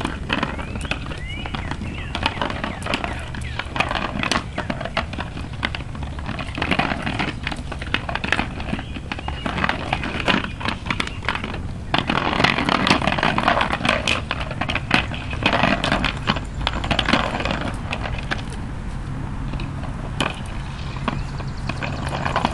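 Two whippets mouthing and batting a plastic hamster-ball toy across concrete: a busy run of sharp plastic clicks, rattles and scrapes mixed with claws clicking on the pavement, heaviest about halfway through.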